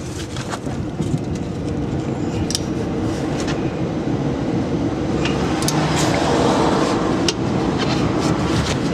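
A hub-assembly bolt being tightened with a ratcheting torque wrench: a few scattered sharp clicks over a steady low mechanical hum that grows slowly louder.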